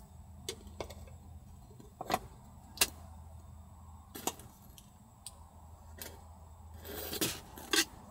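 Irregular light clicks and knocks, about eight of them, the sharpest about two and three seconds in and a cluster near the end, over a low steady hum.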